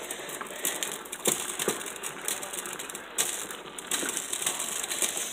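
Ground beef frying in a pan, a steady sizzle and crackle, with a few light clicks and knocks mixed in.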